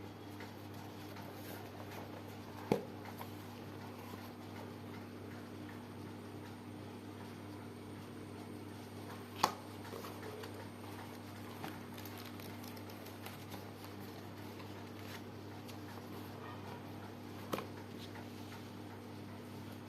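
A few sharp clicks and taps, three of them louder and several seconds apart, over a steady low electrical hum.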